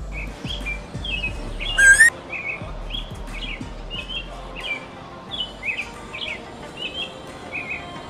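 American robin singing: short caroling phrases one after another, with a single louder rising note about two seconds in.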